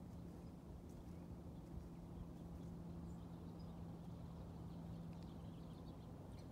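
Faint small-bird chirps, scattered short calls in the second half, over a low rumble and a steady low hum.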